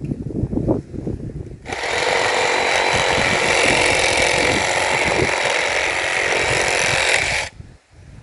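Small chainsaw cutting firewood branches, starting about two seconds in after a few low knocks, running steadily for about six seconds and then stopping abruptly.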